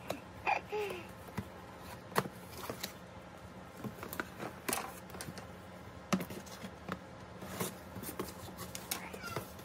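Packaging being handled during an unboxing: scattered rustles and crinkles with light clicks and knocks, irregular and without any steady sound.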